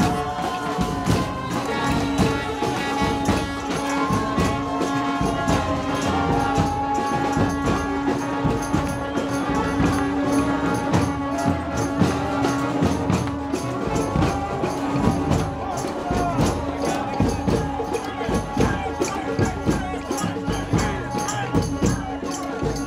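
Street brass band playing with busy rattling percussion; one low note is held steady for long stretches.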